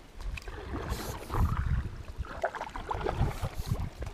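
Kayak paddle strokes: the blades dipping and pulling through the water, with splashing, dripping and a few light knocks.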